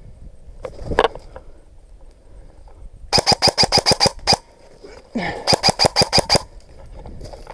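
Airsoft rifle firing two full-auto bursts, rapid evenly spaced cracks at about ten shots a second, each burst lasting just over a second.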